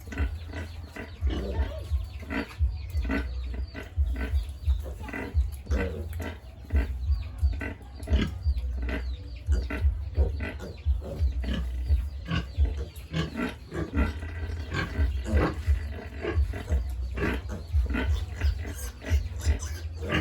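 Pigs grunting, with short calls following one another thick and fast, several a second, over a steady low rumble.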